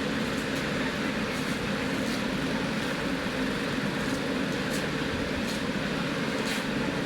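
A steady mechanical rumble that holds level throughout, with a few faint ticks.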